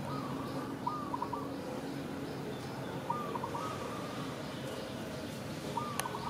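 Short whistle-like animal calls, in small groups every second or two, over a steady outdoor hiss, with one sharp click near the end.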